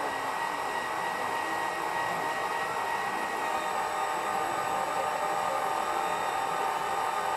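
The hydraulic pump of a 1/14-scale radio-controlled hydraulic excavator running steadily with a whining hum.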